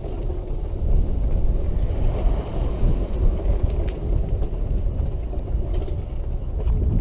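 Road vehicle rumble with wind buffeting the microphone, swelling about two seconds in as a car passes.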